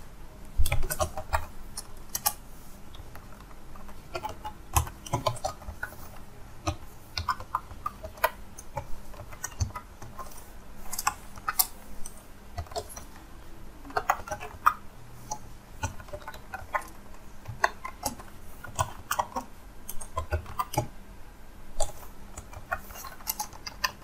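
Typing on a computer keyboard: irregular keystrokes in quick runs with short pauses between them.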